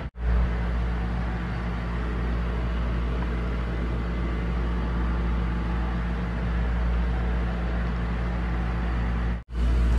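Canister filter running, drawing water through a newly fitted surface skimmer: a steady low hum with an even hiss. It cuts out briefly about nine and a half seconds in.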